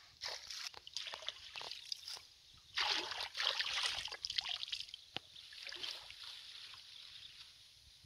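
Irregular soft rustling and splashing noises, loudest a few seconds in, with one sharp click about five seconds in.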